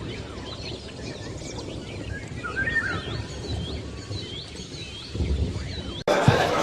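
Many caged lovebirds chirping together in short, high, repeated calls over a low hall rumble. Near the end the sound cuts suddenly to louder room noise.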